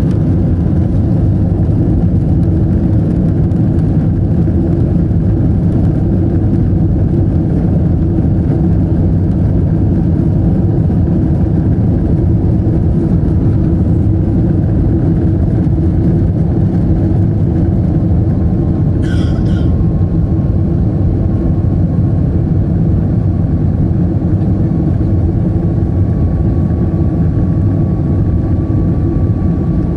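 Airbus A321 cabin noise during the climb: a steady, loud, low rumble of engines and airflow. A faint steady whine joins about two-thirds of the way through, and a brief higher sound is heard just before it.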